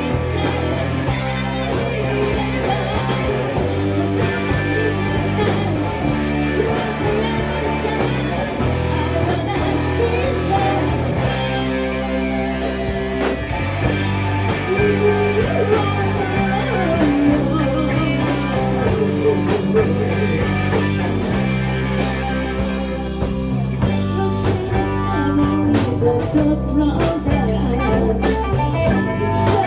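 Rock song with electric guitar, bass and drum kit, and a singing voice over it, playing steadily.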